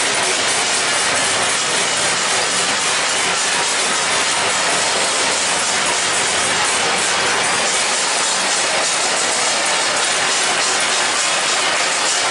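Many people clapping and beating metal plates (thalis) at once from balconies and doorways, a loud, steady, dense din of claps and clanks.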